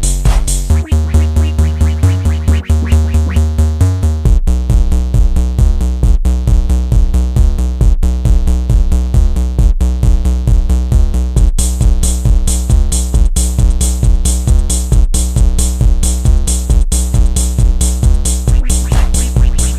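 Electronic background music with a steady drum-machine beat and heavy bass.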